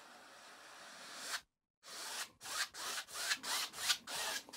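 A paintbrush rubbing oil paint across a canvas: a steady scrubbing for about a second and a half, then after a short pause a run of quick back-and-forth strokes, about three a second.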